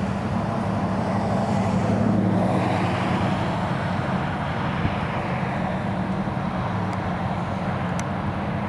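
Strong wind blowing over the microphone, with a steady low hum underneath that swells briefly a couple of seconds in.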